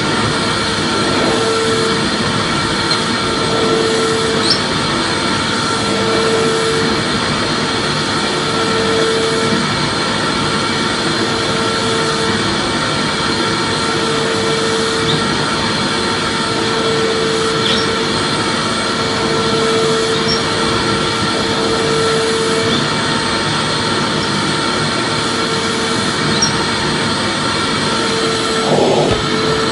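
Vacuum cleaner running steadily: a continuous loud whooshing hiss with a motor whine, and a hum that breaks off and comes back every second or two.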